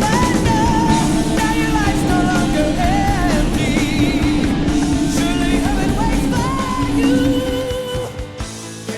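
Rock music with singing, starting to fade out in the last second or so.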